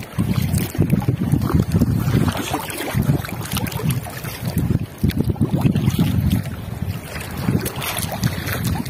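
Wind buffeting the microphone, a gusting low rumble, with a few faint light clicks over it.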